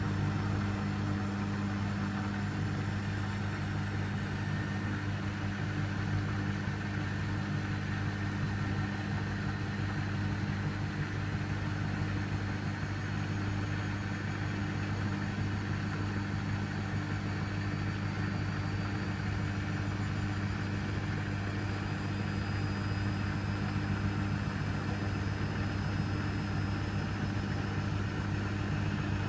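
Beko washing machine running on a 60 °C cottons cycle: a steady low hum with a faint high whine that rises slowly in pitch.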